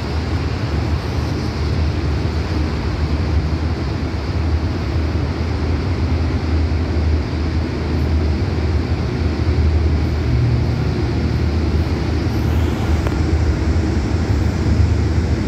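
Steady low rumble and hum of a test train's engine and running machinery, with several low tones held constant throughout.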